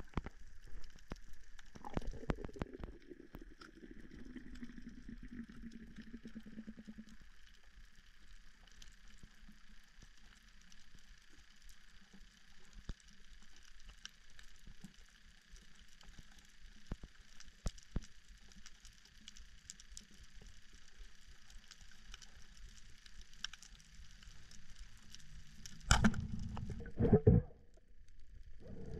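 Underwater reef ambience: a steady fine crackle of many small clicks, typical of snapping shrimp on a coral reef. A low hum slides down in pitch over the first several seconds, and a few loud, low rushes come near the end.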